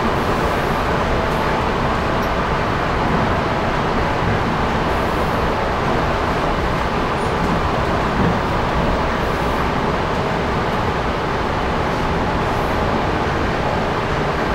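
Suburban electric train running at speed, heard from inside the carriage: a steady rumble of wheels on the rails with a faint steady tone above it.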